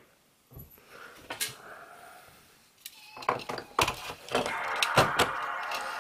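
Clicks, knocks and scraping as a hard drive and its bracket are handled and fitted back into an HP Compaq 6000 Pro all-in-one PC, with only a few isolated clicks at first and a busier clatter over a rustling scrape from about three seconds in.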